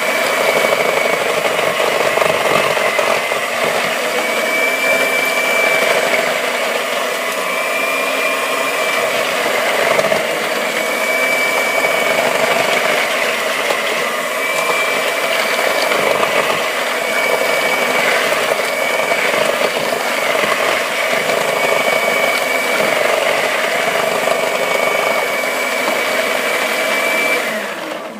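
Electric kitchen mixer running steadily in a bowl of cookie batter, then switched off just before the end.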